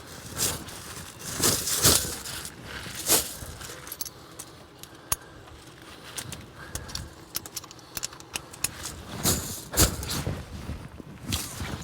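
Steel tire cables on a semi truck tire rattling and clinking as they are handled and hooked up. The sound comes as scattered jangles and sharp clicks, with louder handling noise about two seconds in, about three seconds in and around nine to ten seconds in.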